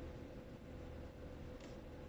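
Quiet room tone: a steady low hum with a faint thin tone and hiss, and one faint tick near the end.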